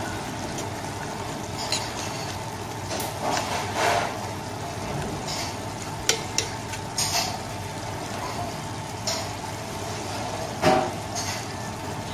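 A metal spoon scraping and clicking against a metal pot now and then, while tomato paste is worked into leeks. Under it, a steady sizzle of the leeks frying in oil.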